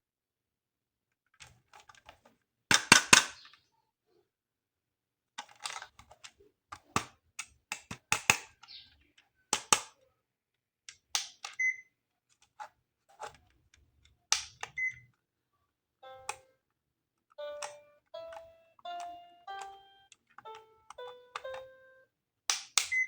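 Plastic toy parts and packaging being handled, with sharp clicks and crackles and a few short beeps. About two-thirds of the way in, an electronic toy starts playing a simple tune of short stepped notes.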